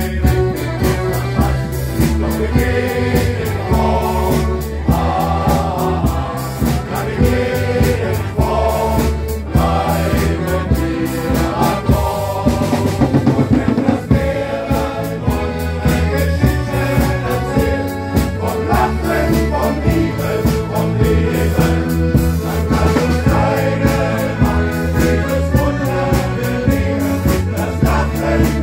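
Live men's choir singing, accompanied by accordions, electric bass guitar and a drum kit.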